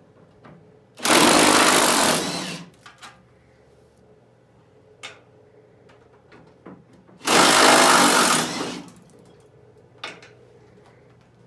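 Cordless impact gun run in two bursts of about a second and a half each, backing out fender bolts, with a few light knocks from handling the panel between them.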